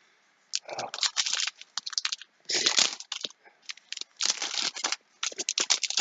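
A clear plastic bag holding a stack of trading cards crinkling in several short spells as hands open it and work the cards loose.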